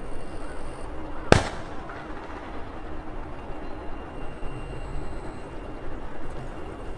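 Steady noise of a Korean Air Airbus A220 airliner, with a single sharp click about a second and a half in.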